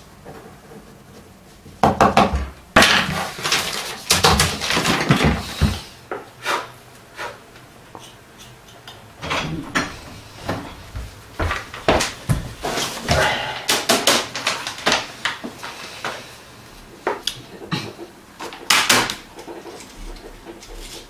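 Irregular knocks and clattering of hard objects being handled, in a dense run early on and a second spread-out run later.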